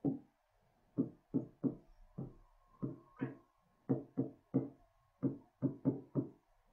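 Stylus tapping on an interactive display board while writing by hand: about fourteen quiet, short knocks at an irregular pace.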